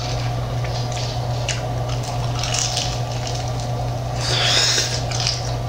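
Biting into and chewing a crispy, crunchy barbecue chicken wing close to the microphone, the crunch loudest about four seconds in, over a steady low hum.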